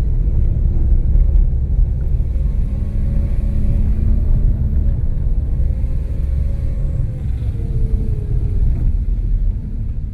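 A vehicle's engine running steadily under a heavy low rumble of road and drive noise, its hum dipping in pitch about eight seconds in.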